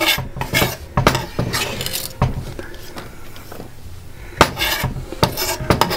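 Kitchen utensils scraping and knocking against a mixing bowl and a wooden chopping board as finely chopped onion is scraped into mashed potato: a run of short clinks, taps and scrapes, busiest near the start and again in the last couple of seconds.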